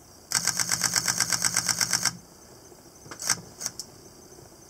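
Camera shutter firing in a rapid continuous burst, some seventeen evenly spaced clicks at about ten a second that stop abruptly after about two seconds. This is a high-speed sequential shoot of the moon, taking many frames for stacking. A couple of faint single clicks follow.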